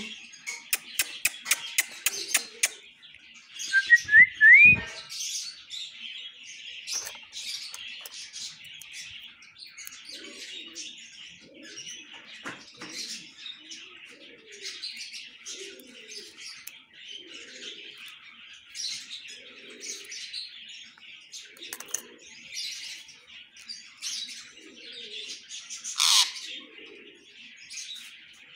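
Alexandrine parakeet chattering softly with chirps and clicks. A quick run of clicks comes at the start, a short rising whistle about four seconds in, and one louder squawk near the end.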